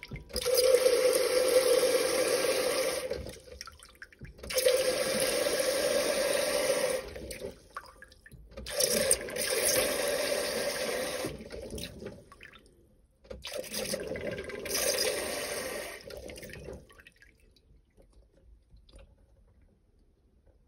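Water pumped from a newly installed Pint365 beer engine's swan-neck spout into a plastic measuring jug: four pulls of the handle, each giving about three seconds of gushing and splashing, as water is run through the pump to check for leaks.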